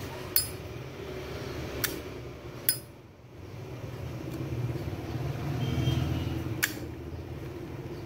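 Zippo lighter's hinged metal lid clicking open and shut: four sharp metallic clicks, two of them with a short bright ring, over a steady low background rumble.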